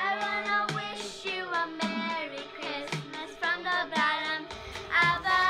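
Music with a child singing a song.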